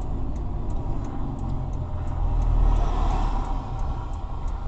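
Car cabin noise while slowing in traffic: a steady low engine and road rumble, with a louder swell of noise about two to three seconds in.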